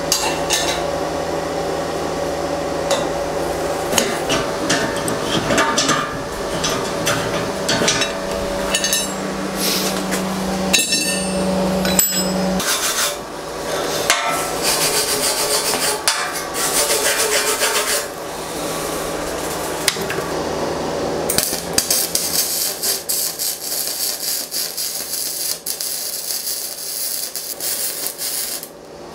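A hammer striking a steel square tube in a string of sharp metal knocks. About two-thirds of the way in, the steady crackle of electric arc welding takes over and stops just before the end.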